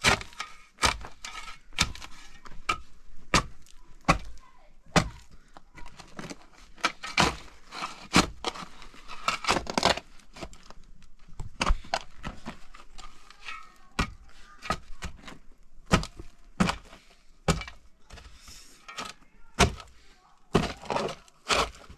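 A series of sharp knocks and cracks at irregular intervals, roughly one a second.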